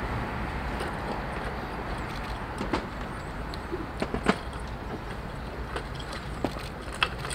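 Small wooden advent-calendar drawers clicking and knocking as meerkats paw and nose them open, a few sharp clicks about three and four seconds in, over a steady background rumble.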